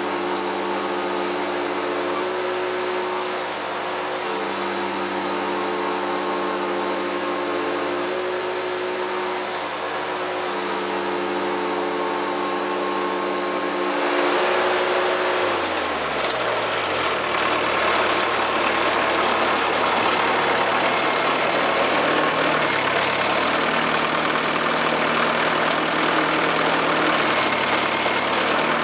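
Wood-Mizer LT40 Super Hydraulic portable band sawmill running under load as its band blade saws through a log, the engine holding a steady pitch. About halfway through, the engine pitch drops over a couple of seconds, and a louder, rougher running noise carries on to the end.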